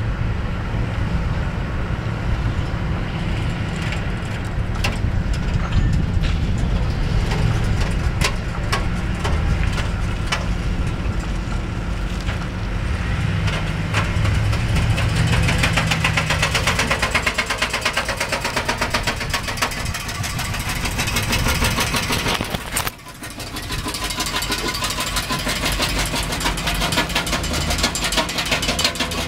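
A van's engine running, joined from about halfway by a fast, even clacking, typical of a heavy-duty zip tie fastened to the spinning driveshaft slapping against the underbody as the van moves off.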